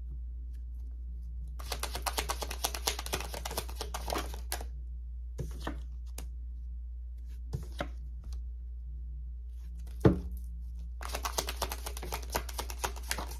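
Tarot cards being shuffled by hand: two runs of rapid flicking card clicks, a few single clicks between them, and one sharp thump about ten seconds in, over a steady low hum.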